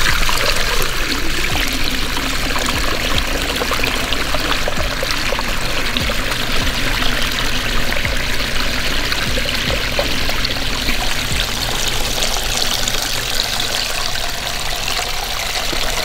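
Water from a small pondless waterfall spilling over a stone spillway and splashing down a short rocky stream bed onto gravel, a steady running-water sound.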